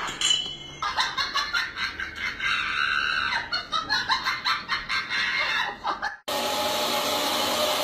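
Chicken clucking, a quick string of short clucks that stops suddenly about six seconds in, followed by a steady rushing hiss.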